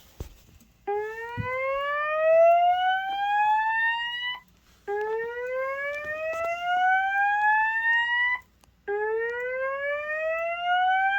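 Slow whoop evacuation tone from fire alarm speakers: repeated rising whoops, each sweeping up in pitch over about three and a half seconds, with a brief pause between them.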